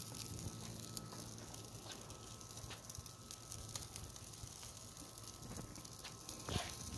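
Beef ribs sizzling faintly over hot charcoal on an open kettle grill, with scattered small crackles and ticks from the fire.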